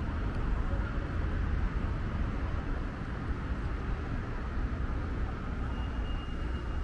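Street traffic: a lorry's engine running as it pulls through a junction, a steady low rumble. A faint, steady high-pitched tone comes in near the end.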